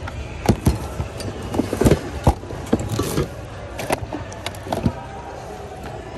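Mixed hard goods knocking and clattering against each other as a thrift-store bin is rummaged through by hand, with irregular sharp knocks, the loudest about two seconds in.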